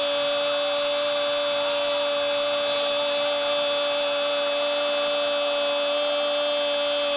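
Spanish-language TV commentator's goal call, one long 'goooool' held on a single high, unwavering note over the stadium crowd's din.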